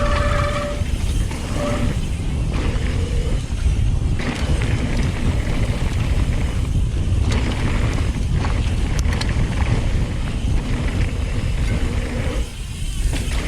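Mountain bike being ridden fast down a dirt trail: wind rumbling over the microphone, tyres rolling on dirt and the bike rattling over bumps.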